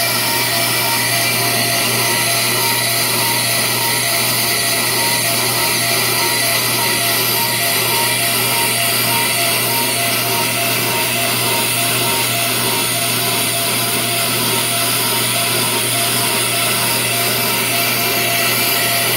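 Ammco brake lathe running steadily, its twin cutting bits shaving both faces of a spinning disc brake rotor. The rotor is being resurfaced to true its warped faces, which cause pulsing brakes.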